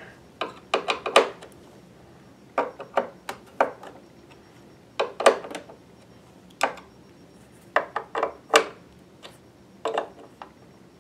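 Hand screwdriver turning screws into the metal bottom plate of a Pfaff Creative Vision sewing machine: irregular sharp metallic clicks and taps, often two or three close together.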